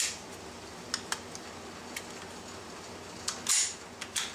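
Hi-Point C9 pistol being worked by hand during a function check: sharp metallic clicks of the action and trigger, a pair about a second in, with a short louder rasp of the slide being cycled a little past the three-second mark.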